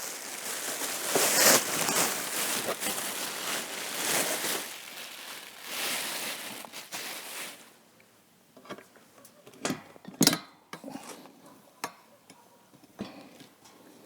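Rustling and handling noise for about seven and a half seconds as a cordless fan is being assembled, then scattered short clicks and knocks as its parts are fitted together, the loudest knock about ten seconds in.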